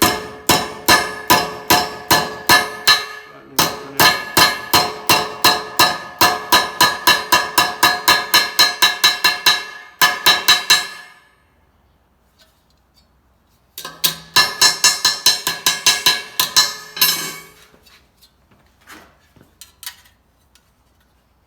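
Hammer striking sheet metal in rapid, ringing blows, about four a second, in two long runs with a short pause between and a few light taps near the end: the tucked edge of the panel being knocked down to trap and shrink the metal.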